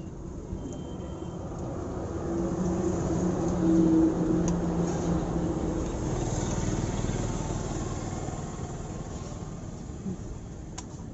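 A motor vehicle passing by: its engine grows louder over a couple of seconds, peaks, then slowly fades away.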